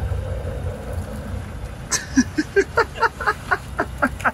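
Pickup truck engine running low and steady as the truck creeps forward on carbon fibre wheels. From about two seconds in, people laugh hard in quick, repeated bursts.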